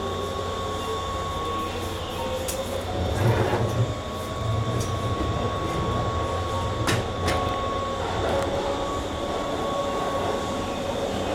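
Keihan 5000 series electric train running, heard from inside the carriage: a steady rumble with an even whine from the running gear. A few sharp clicks of the wheels crossing rail joints come about two and a half seconds in and twice close together near seven seconds.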